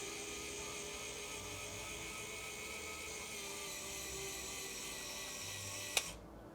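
Small electric motor and gearbox of a Kyosho 1/50 Komatsu HD785-7 RC dump truck whining steadily as it raises the tipper bed, then stopping with a click near the end.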